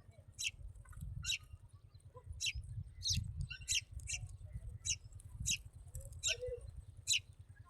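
Small birds chirping: short, high chirps repeated about every half second to a second, over a steady low rumble.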